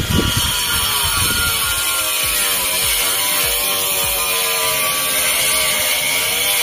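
Angle grinder cutting a terracotta roof tile, its whine dipping and rising in pitch as the blade is loaded.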